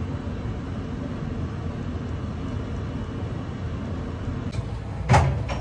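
Steady low rumble of a commercial kitchen, with a single sharp clatter about five seconds in.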